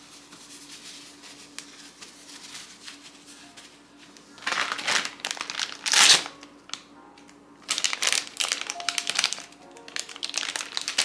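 Packaging crinkling and rustling in two loud spells, the first about four seconds in and the second near eight seconds, over quiet background music.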